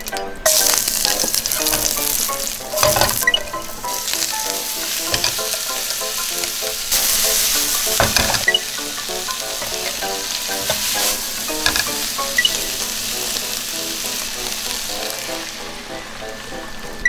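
Sesame oil sizzling in a frying pan as garlic, then sliced onion, carrot and green pepper are stir-fried, with a few sharp clatters of the spatula against the pan. The sizzle dies down near the end.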